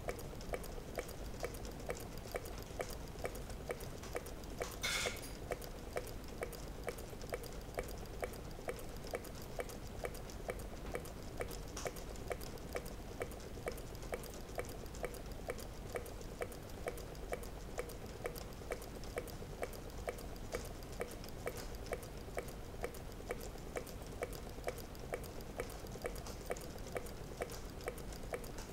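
Meccano model Stirling engine running steadily, its mechanism ticking evenly several times a second over a steady hum. A brief hiss sounds about five seconds in.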